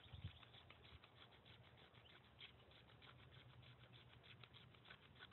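Knife blade scraped rapidly down a magnesium fire-starter block over a tinder bundle: a faint, quick run of dry scratches, many to the second, with a soft knock near the start.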